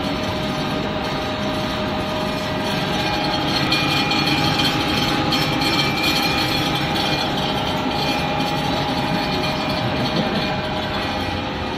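Industrial caramel popcorn production line running: a loud, steady mechanical rattle and hum with a few steady whining tones, growing a little louder about three seconds in.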